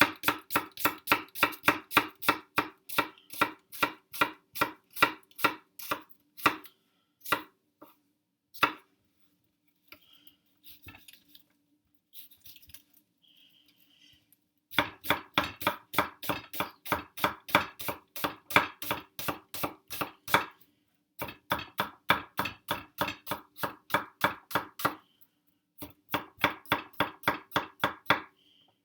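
Kitchen knife chopping onion on a cutting board: quick, even strokes, about four or five a second, in runs of several seconds, with a pause of about five seconds near the middle.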